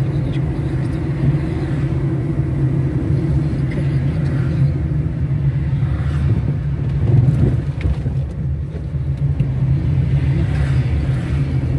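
A car driving along a paved road: a steady low rumble of engine and tyres on asphalt.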